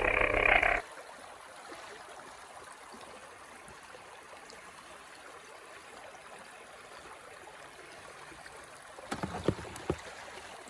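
Small stream flowing and trickling steadily at a low level, after a loud noise that stops abruptly within the first second. A few light knocks come near the end.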